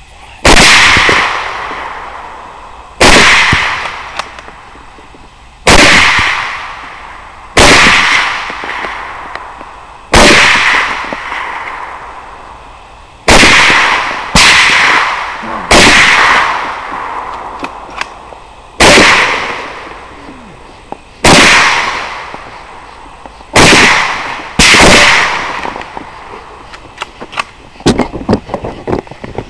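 Rifle shots fired at a group of hogs: about a dozen, spaced one to three seconds apart, each followed by a long trailing echo. A few faint clicks come near the end.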